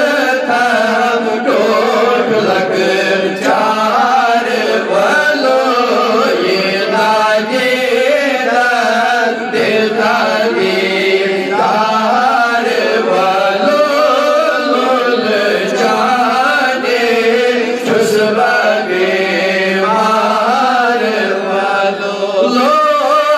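A man's solo voice reciting a Kashmiri naat in a melodic, chant-like singing style into a microphone, with long melismatic lines and brief pauses between phrases.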